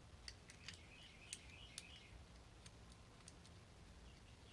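Faint, scattered metal clicks of a tension wrench working the lever inside an antique one-lever padlock, just before the lock opens. The clicks are irregular, more of them in the first two seconds.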